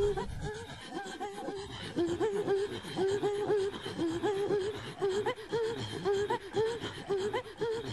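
Inuit throat singing (katajjaq): short, breathy vocal pulses repeated in a steady rhythm, about two to three a second, each a quick rise and fall in pitch.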